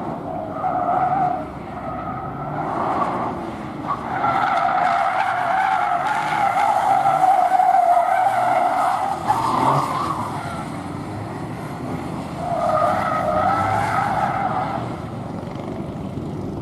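A car at speed on a gymkhana course, its tyres squealing through the turns over the sound of its engine. Several squeals come and go; the longest runs from about four seconds in to ten seconds, and another comes near the end.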